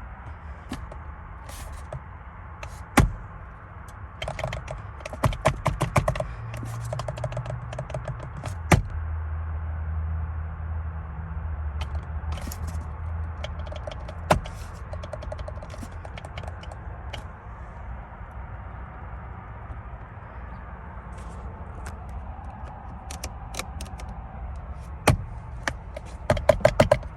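Steering-wheel horn pad of a 2019 Lexus ES 300h pressed over and over without the horn sounding, giving plastic clicks and thunks, some single and some in quick flurries, over a low steady hum.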